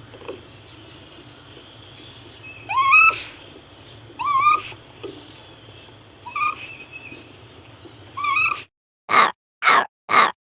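Raccoon calls: four short squealing cries that rise in pitch, one to two seconds apart, over a steady background hum. Near the end it cuts to a different take of four short breathy bursts, about half a second apart.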